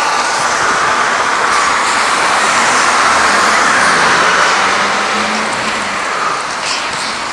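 Road traffic noise: a motor vehicle passing, its tyre and engine noise swelling to a peak about halfway through and then fading.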